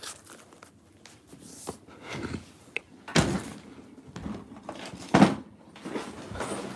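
Handling noise on a phone's microphone: rustling and a few knocks as the phone is moved about and things are handled, the loudest knocks about three seconds in and again about five seconds in.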